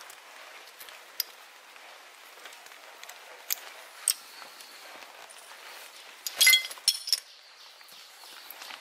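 Hard objects clinking together: a few separate sharp clicks, then a short ringing clatter about six and a half seconds in.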